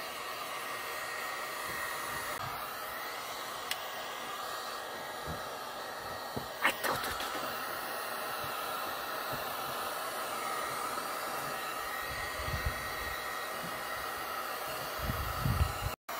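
Black+Decker heat gun blowing steadily, heating a PVC repair patch on an inflatable boat's tube to set the adhesive. There are a few faint clicks and some soft low knocks near the end.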